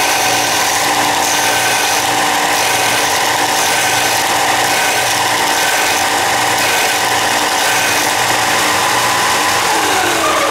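Ryobi belt sander running steadily with a steady motor whine, then switched off near the end, its pitch falling as it winds down.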